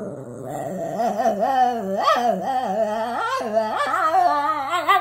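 Shih Tzu "talking": one long, unbroken howling whine that warbles up and down in pitch.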